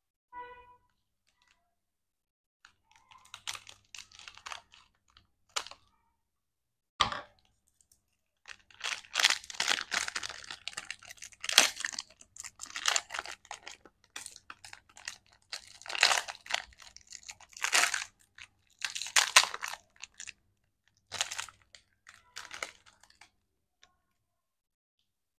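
Plastic lollipop wrapper crinkled and torn open by hand, in irregular bursts of crackling and sharp clicks that are densest in the middle and die away near the end.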